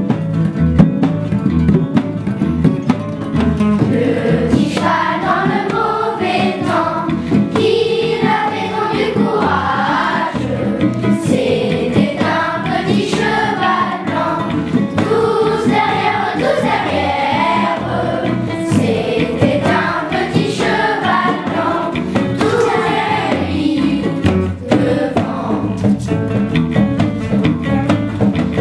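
A song: instrumental backing, with a group of voices singing together in unison from about four seconds in.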